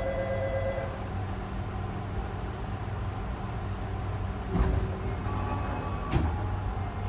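Sliding passenger doors of a Tobu 50050 series commuter train closing, over the steady hum of the standing train. A thud about four and a half seconds in, then a short chime, and a sharp thump about a second and a half after the thud as the doors shut.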